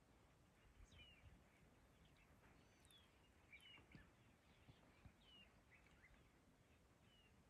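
Near silence outdoors, with a bird faintly repeating a short, high, falling chirp every second or two.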